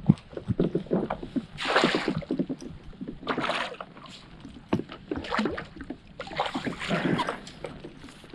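Hooked bass splashing at the surface beside a kayak as it is played in and netted: several loud splashy bursts among short knocks and clicks from gear on the hull.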